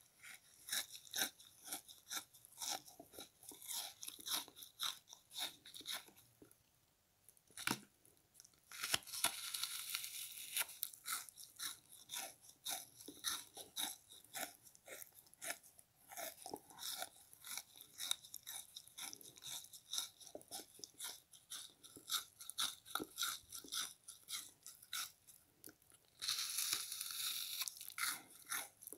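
A frozen pink bath sponge being chewed: rapid crisp crunches and crackles of its icy crust. There is a pause of about two seconds, about six seconds in, broken by one sharp crack. Denser crackling follows around nine seconds in and again near the end.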